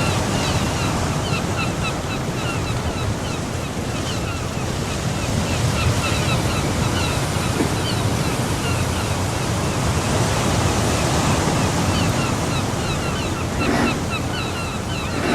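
Steady rushing outdoor noise of wind and rain, with rapid, evenly repeated high chirps running over it.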